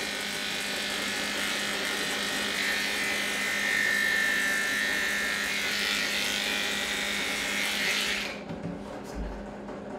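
Electric dog grooming clippers with a No. 10 blade buzzing steadily while clipping the hair on a cockapoo's head. The buzz stops suddenly about eight seconds in.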